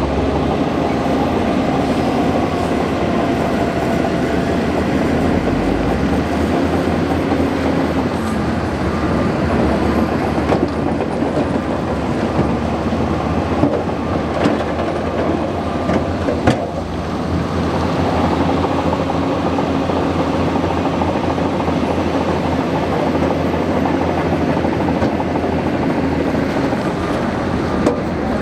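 Bulldozer's diesel engine running steadily under load, with the steel tracks clattering, and a few sharp clanks about halfway through.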